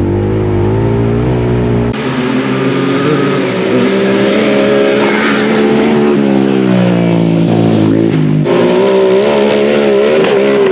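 Quad (ATV) engines running hard, their pitch rising and falling with the throttle. The sound changes abruptly about two seconds in and again about eight and a half seconds in.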